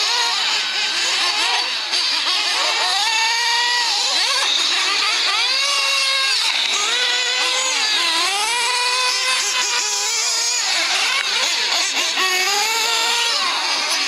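The small nitro engines of several 1/8-scale RC off-road buggies racing, their buzz overlapping and rising and falling in pitch again and again as the cars accelerate and back off.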